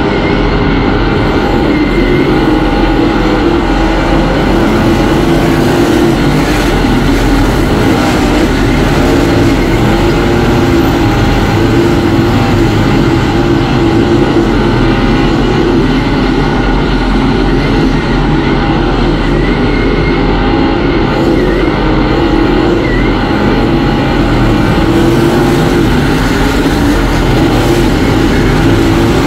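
Dirt late model race car's V8 engine running hard at racing speed, heard from inside the cockpit: a loud, continuous drone that wavers slightly as the throttle is worked, with no let-up.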